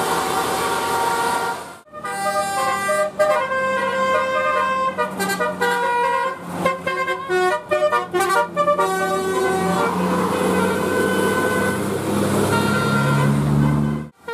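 Indonesian bus 'telolet basuri' musical horns playing a tune of quick stepped notes, with longer held notes later on. Abrupt cuts about two seconds in and just before the end break it into separate clips.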